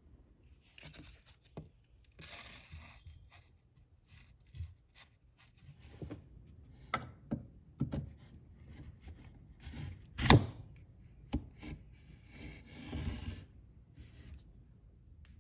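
Hand-handling noise of a wooden cane and sword blade on a wooden workbench: scattered scrapes, rustles and light knocks, with one sharp knock about ten seconds in as the loudest sound.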